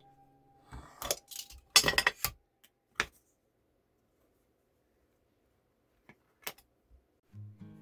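Hand-cutting a small piece of PVC sheet: a few sharp clicks, a short burst of cutting and scraping about two seconds in, then a single click and a couple of light taps of the piece being handled.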